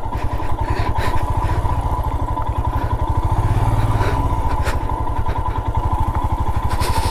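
Royal Enfield Himalayan's single-cylinder engine chugging evenly at low revs on a rough track, pulling a little harder about halfway through, with a few short sharp knocks.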